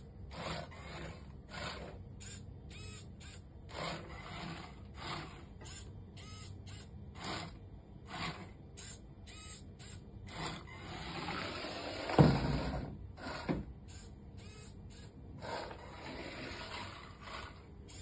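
Small plastic gear motors of a homemade sensor-guided robot car whirring in short, irregular bursts as it drives, stops and turns on a tile floor. About twelve seconds in comes a sharp loud thump, with a smaller one just over a second later.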